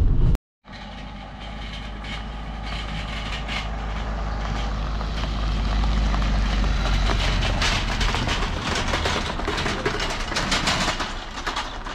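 Vehicle engine running steadily, with many clicks and knocks setting in about halfway through and growing denser.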